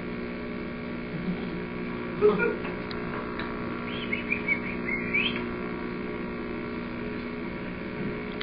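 Steady electrical hum on an old home-video soundtrack. Over it come brief baby vocal sounds: one about two seconds in, then a few short high squeals between four and five seconds in.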